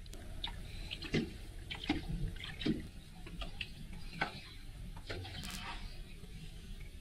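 Small waves lapping and slapping against a fishing boat's hull in irregular splashes, over a steady low rumble.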